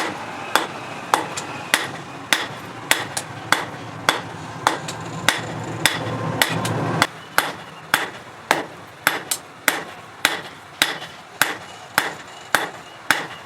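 A hammer beating a metal nut in forging, struck at a steady rhythm of nearly two blows a second. A low steady hum runs under the blows and cuts off suddenly about seven seconds in.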